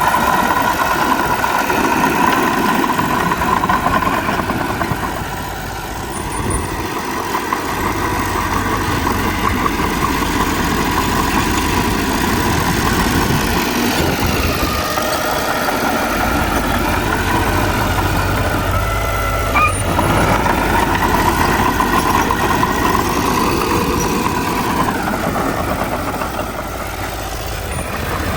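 Diesel engines of a bulldozer and dump trucks running steadily, the engine note dropping and picking up again a few times.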